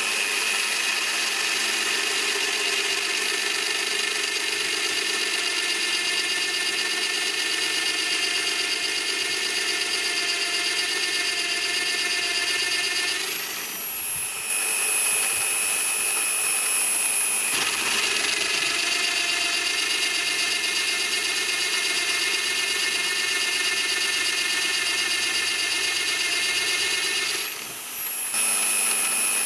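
Bosch PBD 40 bench pillar drill running steadily with a high whine as its twist bit cuts into a steel bar. The sound dips briefly twice, about halfway through and near the end.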